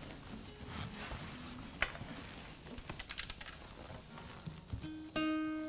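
Acoustic guitar being handled, with light knocks and taps against its body, then a single string plucked about five seconds in and left ringing.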